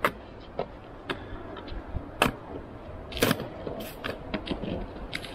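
A trekking pole jabbing at and breaking the edge of thin shelf ice on a frozen river: a dozen or so sharp, separate strikes, the loudest about two and three seconds in.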